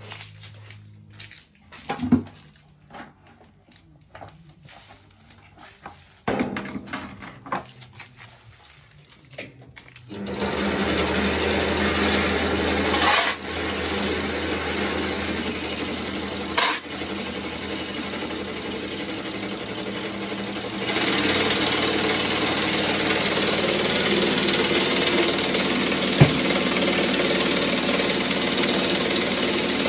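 Homemade vibrating sieve for crushed-glass blasting media starts about a third of the way in and runs with a steady mechanical rattle and low hum. About two-thirds in it gets louder and brighter as crushed glass is poured onto the shaking screen. Before it starts there are scattered knocks and clatter.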